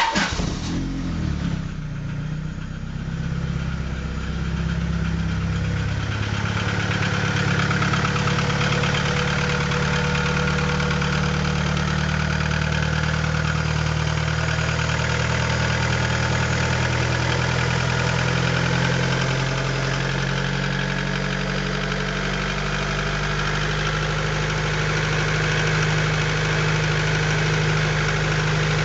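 Honda B20A four-cylinder engine with forged pistons cold-starting, uneven for the first couple of seconds, then idling steadily. It has a knocking slap, which the owner takes for cold-start piston slap from the forged pistons.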